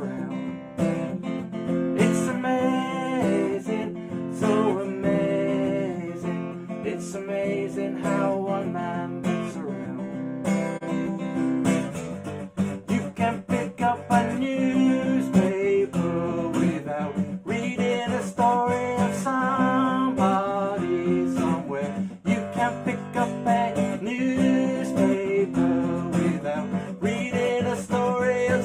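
Song with strummed acoustic guitar, in a passage where no lyrics are heard.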